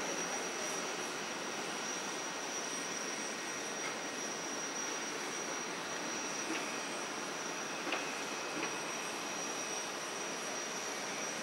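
Airbus A350-900's Rolls-Royce Trent XWB turbofans running at taxi idle as it passes: a steady rushing hiss under a high, steady whine, with a few faint ticks partway through.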